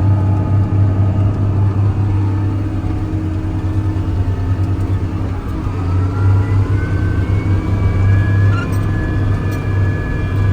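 John Deere 648 log skidder's diesel engine running as the machine drives, a steady low drone. About halfway through it eases briefly, then picks up again with a rising whine.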